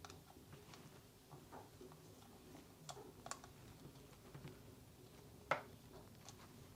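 Faint, scattered clicks of a small screwdriver backing screws out of a plastic robot toy's shell, with one sharper click about five and a half seconds in.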